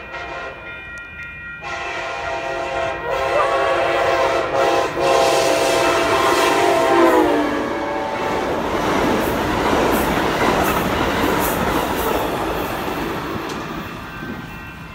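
Amtrak Pacific Surfliner passenger train passing at speed, sounding its horn on approach; the horn's pitch drops as the train goes by, about seven seconds in, and then the rush and clatter of the passenger cars takes over and fades near the end. Steady ringing of the grade-crossing bells runs underneath.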